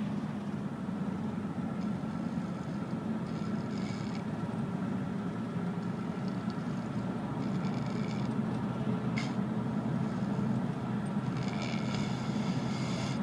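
A person snoring, with a breathy rasp returning about every four seconds over a steady low drone.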